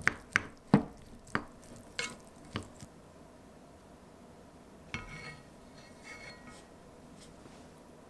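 Wooden spoon mixing cooked rice in a small black coated pot, knocking against the pot about six times in quick succession over the first three seconds, then a softer scrape with a faint ring about five seconds in and again a second later.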